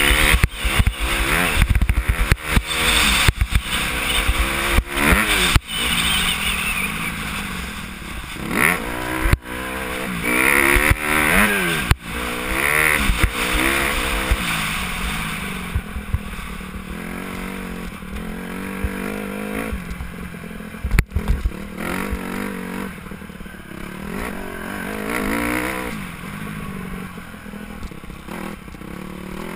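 Dirt bike engine heard from on board, revving up and dropping back again and again as it is ridden through the gears and corners, with knocks from the bike over bumps and wind buffeting the microphone, heaviest in the first half.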